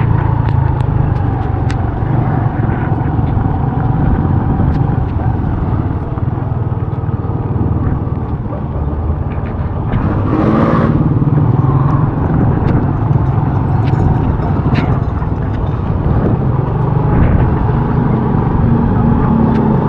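Honda RSX 110 single-cylinder four-stroke motorcycle engine running steadily while riding, with wind and road noise. A brief louder swell passes about halfway through.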